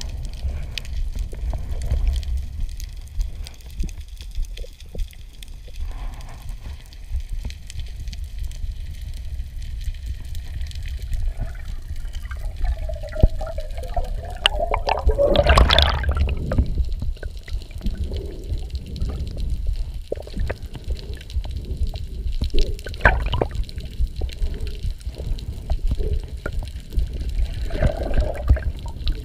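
Muffled underwater rumble of sea water around a submerged waterproof camera, with bubbling and splashing bursts. The loudest comes about halfway through, with smaller ones near the end.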